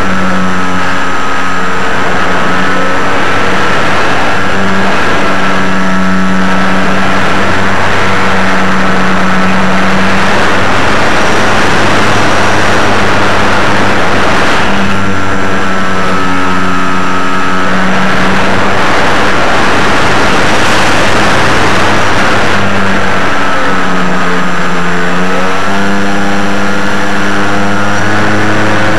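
Aircraft engine and propeller running loudly and steadily throughout, its pitch drifting slightly up and down.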